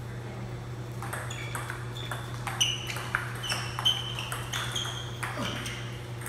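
Table tennis rally: the ball clicking sharply off paddles and the table in quick succession, from about a second in until shortly before the end, with a steady low hum underneath.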